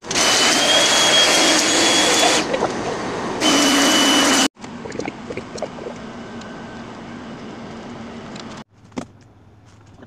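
A hand-held power tool's motor running with a steady high whine over loud hiss. It eases off briefly about two and a half seconds in, comes back, and cuts off suddenly near halfway. After that there is a much fainter hiss with light scattered knocks.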